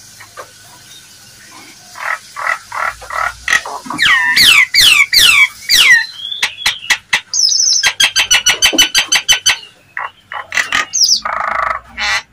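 Nias hill myna calling loudly through a varied series: repeated short notes, then falling whistles, then a fast run of sharp clicks, and a harsh burst near the end. This is a lure call meant to set other Nias mynas answering.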